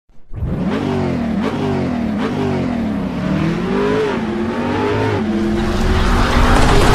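Car engine revving, its pitch rising and falling over and over and growing louder toward the end.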